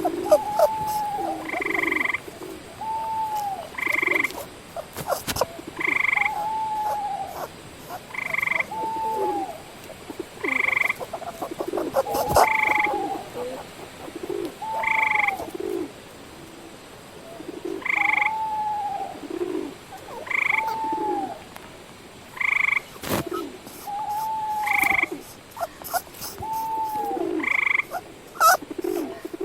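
Frogs croaking in a steady, repeating chorus, about one call a second, with a few sharp clicks.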